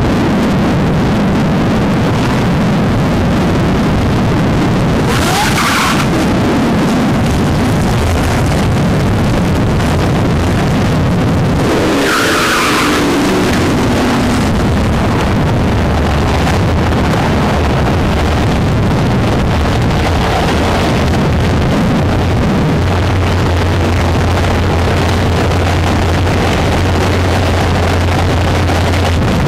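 Supercharged V6 of a Pontiac Grand Prix GTP running as the car moves up for a drag launch, with two short bursts of tyre squeal from wheelspin. Near the end it settles into a steady low idle hum while staged at the line.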